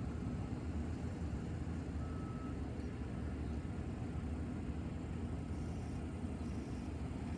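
Steady low rumble of outdoor background noise with no clear events, and a faint brief tone about two seconds in.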